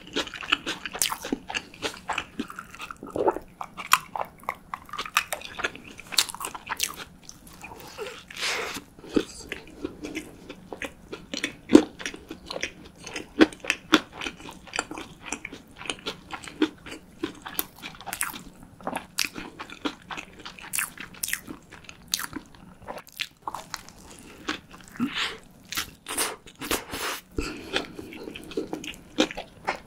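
A person chewing and crunching a crispy fried shrimp burger, with dense crackly crunches throughout.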